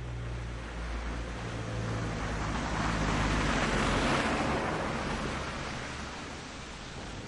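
A car driving on a snowy road: tyre and road noise over a low engine drone. The noise swells to a peak about four seconds in, then eases off.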